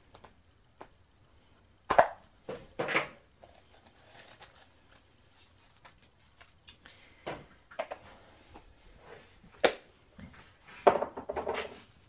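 Dried bay leaves crackling as they are snapped from a sprig and dropped into a stockpot, heard as a few short, sharp crackles, with a denser cluster of rustling and clicking near the end.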